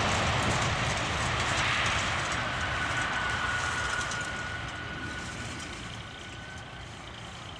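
The jet engines of an Airbus A320-214, CFM56 turbofans, roar as the airliner rolls out after touchdown. The roar dies away steadily as it slows and moves off down the runway, and a thin steady whine rides over it for a few seconds in the middle.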